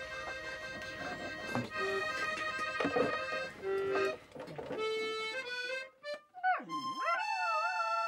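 A button accordion playing a tune in chords, with its buttons clicking. About six and a half seconds in, a dog starts howling along in long, wavering, swooping notes over the held chords.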